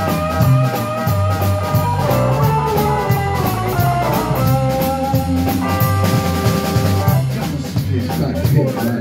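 Live blues trio playing: an electric guitar lead of held, wavering and bent notes over electric bass and a drum kit, the cymbals keeping a steady beat.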